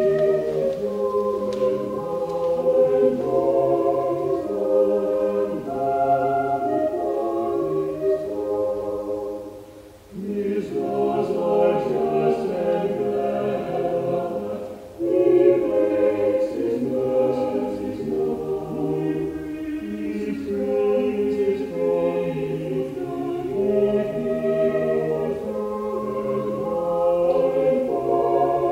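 Choir singing sacred choral music in long sustained phrases, with a short break between phrases about ten seconds in and a brief dip near fifteen seconds.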